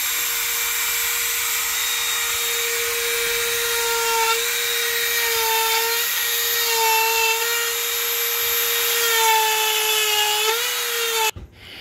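Dremel rotary tool spinning a flex-shaft handpiece at high speed, carving wood with a steady high whine. The pitch dips slightly a few times as the bit is pressed into the wood. The whine cuts off abruptly near the end.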